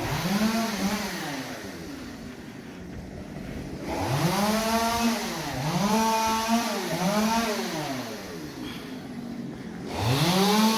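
Small petrol engine revved up and let drop back to idle five times, each rev rising and falling in pitch over about a second.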